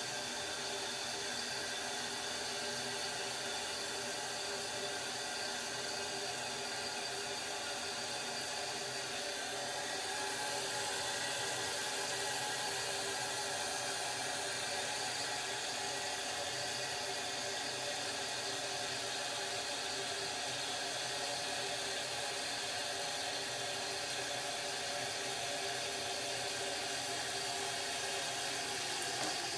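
Toilet tank refilling through its fill valve: a steady hiss with several steady tones in it, stopping suddenly at the very end.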